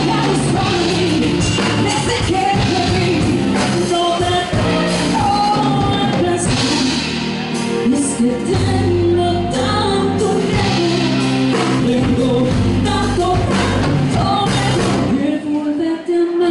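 A woman singing a ballad live into a microphone, backed by a band with guitar and drums.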